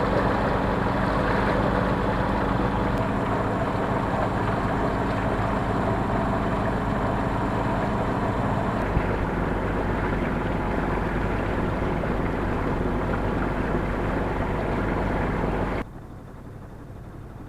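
A sailboat's small inboard diesel engine running steadily under way, with wind and water noise over it. The sound drops off abruptly near the end.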